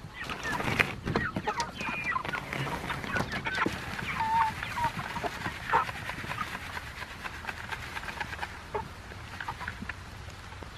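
A flock of chickens clucking and peeping, busiest in the first half, with a few sharp knocks and rattles among the calls.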